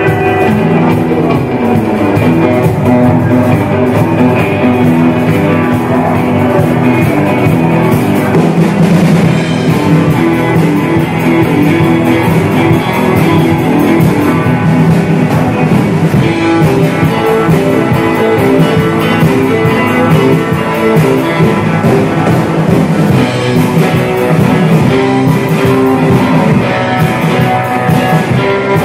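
Rock band playing: guitar over a drum kit, loud and steady.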